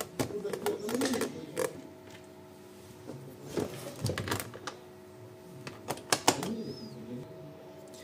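Hands handling the plastic underside of a Roborock S5 Max robot vacuum and fitting its side brush back onto the hub: scattered light clicks and plastic knocks.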